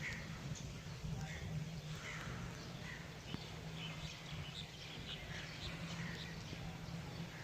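Steady rain hiss with scattered short bird chirps over a steady low hum.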